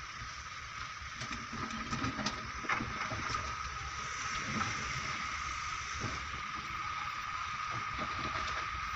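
Heavy machinery running: a low, steady engine rumble with a constant high whine and hiss over it, and a few faint knocks a couple of seconds in.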